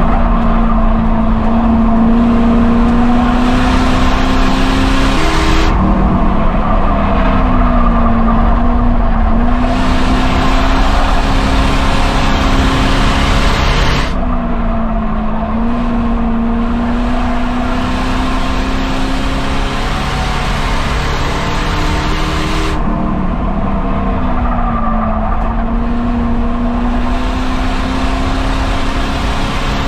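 Ford Crown Victoria race car's V8 engine running hard at steady revs on an oval, its pitch dipping and climbing back every several seconds.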